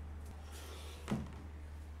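Low steady hum under a quiet room, with one soft knock about a second in as an object is set down on the wooden table.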